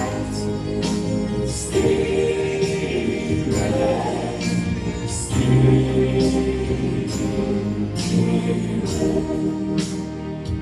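Gospel worship music: a choir singing held notes over a band, with a steady beat a little under once a second.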